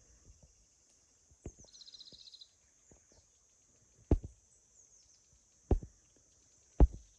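Four sharp thumps spaced irregularly over a steady high hiss, with a small bird's rapid trill of about ten notes a second and a half in and a few faint high chirps.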